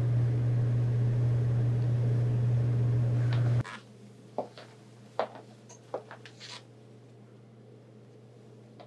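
A steady low hum that cuts off abruptly about three and a half seconds in, giving way to a quiet room with a few faint clicks and taps.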